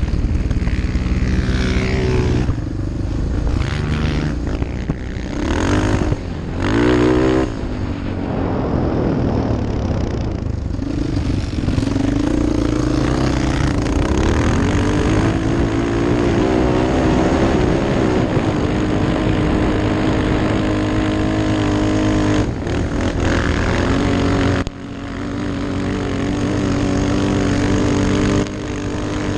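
Sport quad's engine under hard throttle, rising and falling in pitch as the rider works through the gears on sand, with wind rushing on the helmet microphone. The engine note drops sharply for a moment several times, briefly off the throttle or shifting, most clearly about two-thirds of the way through and again near the end.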